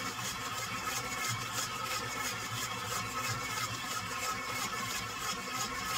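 KitchenAid stand mixer running steadily with a low hum and a faint whine, its scraper-edged beater churning granulated sugar and molasses in the steel bowl.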